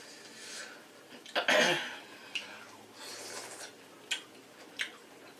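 Close-up eating sounds from a person eating seafood dipped in sauce. There is a loud breathy mouth noise about a second and a half in, then a short hiss and a few sharp clicks of mouth or utensil.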